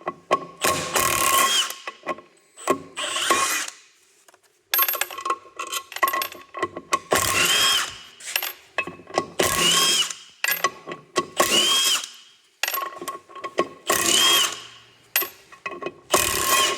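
Handheld power driver zipping out bolts in about eight short bursts, each spinning up and back down, as the drive coupler is unbolted.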